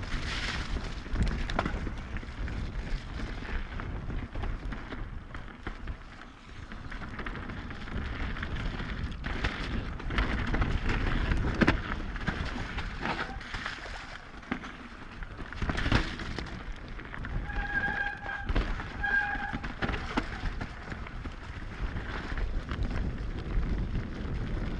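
Mountain bike descending a wet, muddy trail at speed: a steady rush of tyres on dirt and wind on the microphone, with repeated knocks and rattles from the bike over roots and bumps. Two short high squeals come about three-quarters of the way through.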